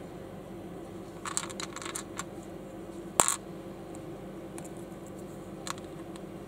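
Small plastic building bricks clicking as they are handled and pressed together: a quick run of light clicks just over a second in, one sharp snap a little after three seconds, and a few faint ticks later, over a steady low hum.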